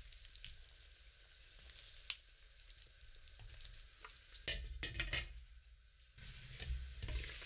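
Pork ribs simmering in soy sauce liquid in a wok, a soft steady sizzle and bubbling, with a spatula stirring them. A few light knocks and scrapes against the pan come about four to five seconds in.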